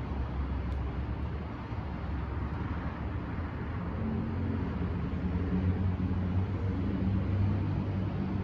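Low, steady engine rumble of a motor vehicle, with a deeper hum coming in about halfway and growing a little louder.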